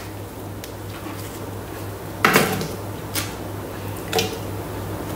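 Kitchen knife chopping an onion on a plastic chopping board, making a few separate knocks, the loudest a little over two seconds in. A steady low hum runs underneath.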